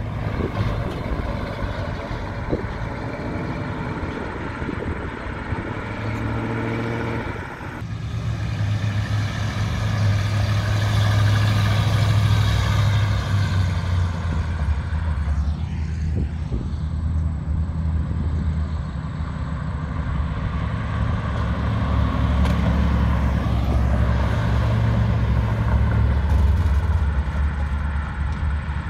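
Classic cars and pickup trucks driving past, their engines giving a low, steady rumble, with one engine note rising and falling briefly about six seconds in.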